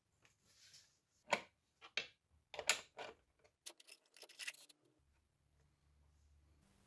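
Aluminium channel fence being handled on a board: a short scrape, then a run of sharp knocks and clicks as it is shifted, lifted and set down, ending about five seconds in.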